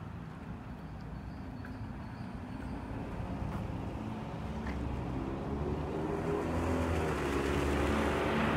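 A road vehicle approaching on a wet street: tyre hiss on the wet asphalt and its engine's hum grow steadily louder, strongest near the end.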